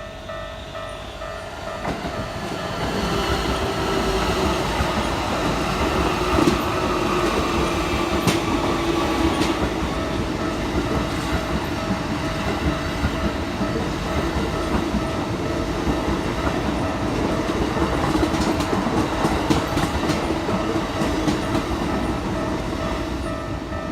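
Keikyu train running through a level crossing, its wheels clattering over the rails, building up about two seconds in and easing off near the end. The Japanese crossing bell keeps up its fast repeating clang throughout.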